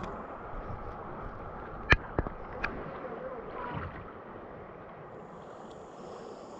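Shallow creek water rippling and lapping around an inflatable tube. There are three sharp knocks a little under a second apart about two seconds in, the first the loudest. The water noise eases after about four seconds.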